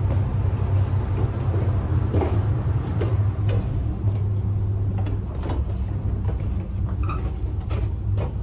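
Footsteps knocking irregularly on wooden stair treads while going down a steep passage, over a steady low hum.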